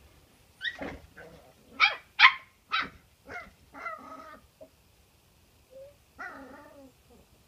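Cairn terrier puppies yapping: a quick run of short, high-pitched yips and barks, then one longer yelp after a brief pause.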